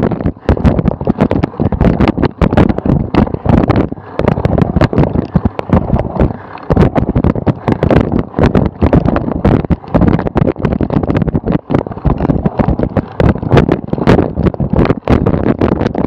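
Wind buffeting the microphone together with a constant, irregular run of knocks and rattles from a cyclocross bike riding over bumpy grass.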